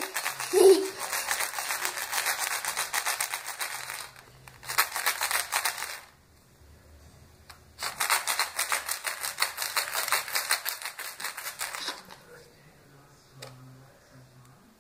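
Rapid, dense clicking and rattling from surprise eggs and candy being handled, in three bursts: about four seconds, a short one, then about four seconds more. It stops two seconds from the end.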